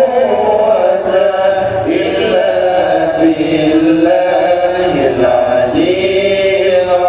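Islamic devotional chanting: voices singing slow, drawn-out notes that hold and glide from one pitch to the next without pause.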